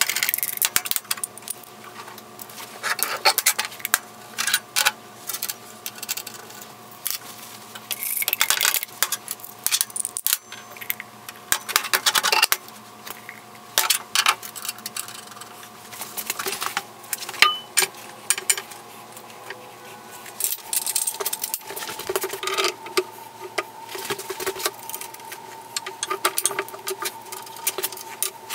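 Steel parts clinking and clattering: bolts, nuts, washers and steel linkage arms of a homemade power hammer handled and bolted together, in irregular sharp clicks and knocks.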